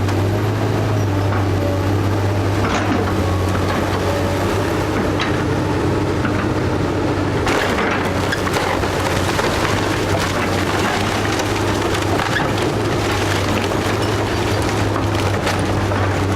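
A wooden house being torn down: the timber framing cracks and splinters in a dense run of snaps from about halfway through. Under it, the diesel engine of the heavy demolition machine runs steadily.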